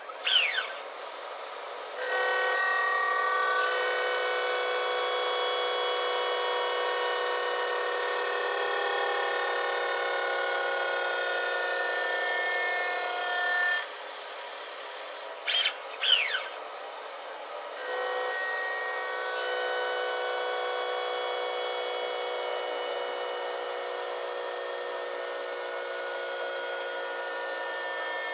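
Diamond-cut wheel lathe turning an aluminium alloy wheel while its cutting tool skims the curb-rashed face, making a steady machining whine with several high tones held together. The cut runs from about 2 s in to around 14 s, drops to a quieter spinning with two short sharp sweeps, and starts again about 18 s in.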